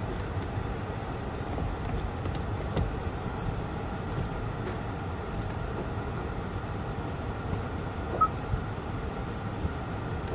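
Steady low rumble of a car running at idle, heard from inside the cabin, with one short high beep about eight seconds in.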